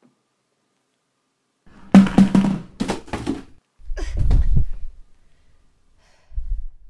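Silence broken about two seconds in by a burst of loud knocks and clatter, followed by a deep low boom lasting about a second, and a softer low thud near the end.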